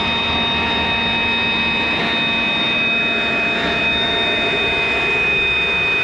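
Battery-powered handheld leaf blower running steadily: a rush of blown air with a high motor whine holding several steady pitches, loud enough to read about 83 decibels some three feet from the ear.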